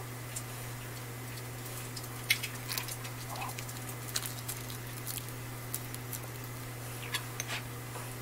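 Steady low electrical hum, with faint scattered clicks, ticks and light crinkles from fingers handling small pieces of dried laver over a ceramic bowl; the sharpest tick comes about two seconds in.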